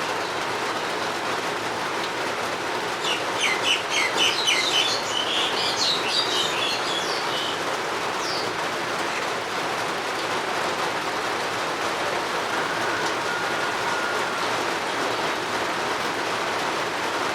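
Steady rain falling, an even hiss throughout. A bird sings a quick series of chirps and trills from about three to seven seconds in.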